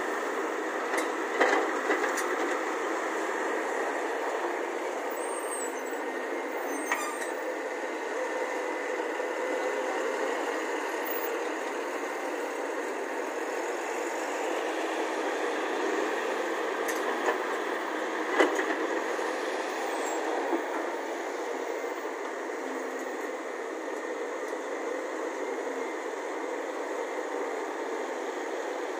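Volvo crawler excavator's diesel engine running under load while it digs soil and loads a tipper truck, a steady mechanical din. A few sharp knocks cut through it, the loudest about two-thirds of the way in.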